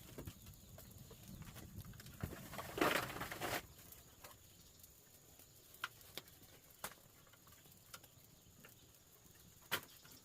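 An open fire crackling, with scattered sharp pops and one louder rustling burst about three seconds in.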